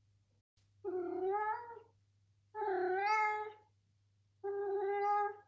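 An adult long-haired cat meows three times, each meow about a second long, with about a second between them.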